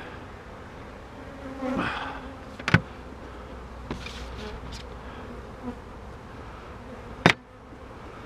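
A mass of honey bees buzzing steadily around an opened hive. There are two sharp knocks, one nearly three seconds in and one near the end, which are the loudest sounds.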